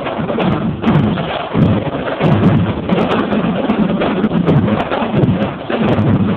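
A high school marching drumline playing a fast drum cadence, many quick strikes packed close together.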